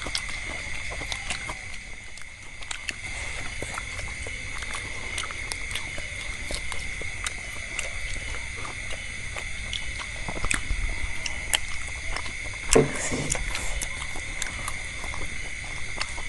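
People eating fried meatballs and vegetables: scattered small clicks and ticks of chewing and utensils, over a steady high-pitched tone. A sharp knock about two-thirds of the way through is the loudest sound.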